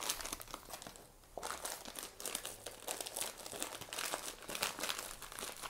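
Crinkly wrapping rustling and crackling in the hands as spare carburetor gaskets and parts are packed away, with a short lull about a second in.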